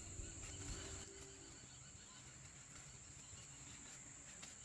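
Near silence: faint room tone with a steady, thin high-pitched whine.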